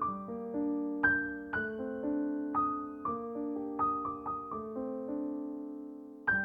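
Gentle background piano music: soft notes and chords struck one after another, each fading away, with a longer note left to die away before the next phrase begins near the end.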